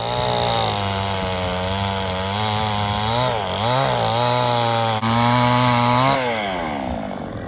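Two-stroke chainsaw running at high revs, its pitch dipping briefly twice about three and a half seconds in, then falling away near the end.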